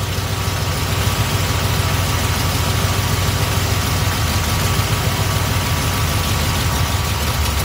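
Small-block Chevy V8 idling steadily. The idle mixture screw of its Edelbrock carburetor is being turned in, leaning the mixture until the idle sags toward stalling.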